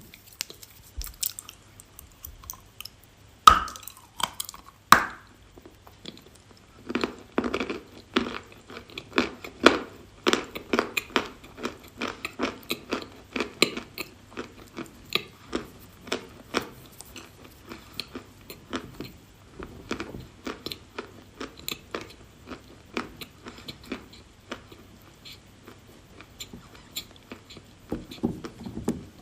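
A person biting and chewing dry edible clay. There are two sharp crunchy bites about three and a half and five seconds in, followed by a long run of quick crunching chews.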